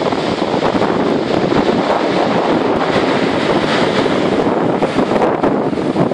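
Sea surf breaking on a shingle beach: a continuous wash of foaming waves with the crackling rattle of pebbles being dragged in the water.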